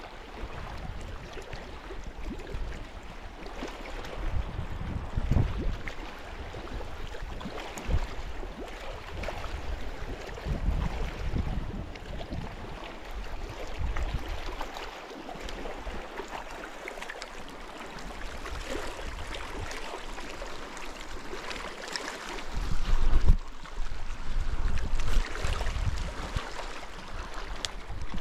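Wind buffeting the microphone in irregular gusts, the strongest about two-thirds of the way through, over a steady wash of lake water along the shore.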